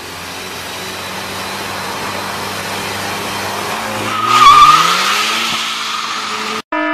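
Volkswagen Golf GTI idling, then launched hard about four seconds in: the engine revs climb and the tyres squeal briefly as they spin on the asphalt. The sound cuts off abruptly near the end.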